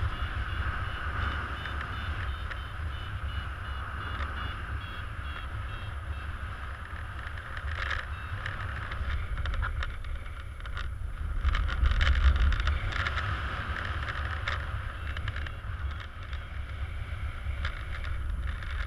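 Airflow buffeting the pilot-mounted camera's microphone in paraglider flight: a steady low rumble with a hiss above it, swelling for a couple of seconds around the middle.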